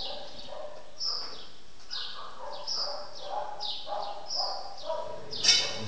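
Dogs barking over and over, about one bark a second. A louder, sharper bark or yelp comes near the end.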